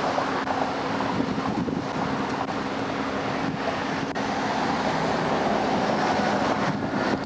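Highway traffic rushing past with wind buffeting the microphone, over a steady low hum; a tractor-trailer goes by about midway, the noise swelling slightly.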